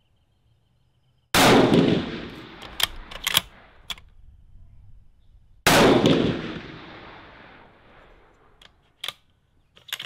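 Two rifle shots from a 6.5mm Creedmoor bolt-action rifle, about four seconds apart, each trailing off in a long echo. After each shot come a few quick metallic clicks of the bolt being worked.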